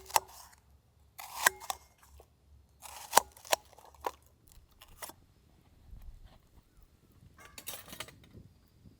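Irregular sharp clicks and short rustles, spread a second or two apart, with a longer rustle near the end: objects being handled.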